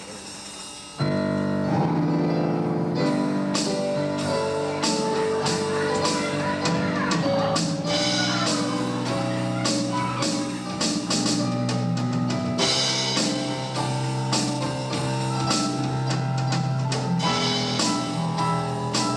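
Instrumental band music from the show's score: a soft passage breaks about a second in into the full band playing loudly, with sustained chords over a steady beat of drum hits.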